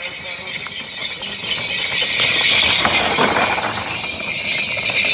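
A pair of racing water buffalo pulling a cart at speed, their neck bells jangling and clattering over pounding hooves. The sound grows louder as they approach and is loudest about halfway through.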